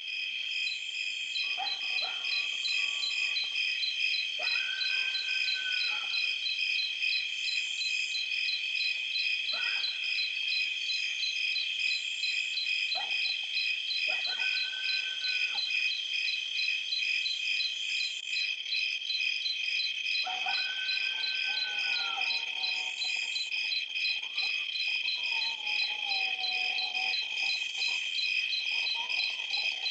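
A steady chorus of insects trilling in a fast, high, pulsing buzz. Fainter, lower calls come and go now and then.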